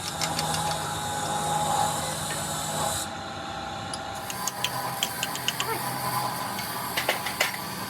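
Workshop noise: a steady hiss with a machine hum, then a run of light, sharp metallic clinks in the second half.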